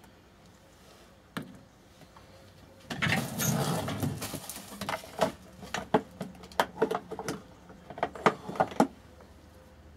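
Spice jars and containers being handled on a kitchen counter: a single knock, a stretch of clattering and rustling, then a run of sharp clicks and taps.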